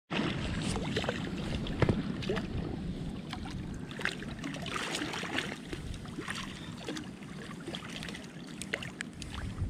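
Water lapping and small splashes around a belly boat on a pond, with many little ticks and splashes over a low wind rumble on the microphone.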